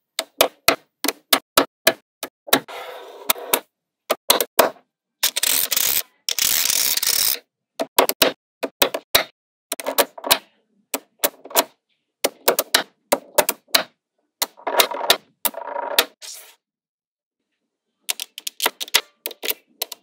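Small magnetic balls snapping onto one another in quick, sharp clicks, several a second, with a few runs of continuous clatter lasting one to two seconds.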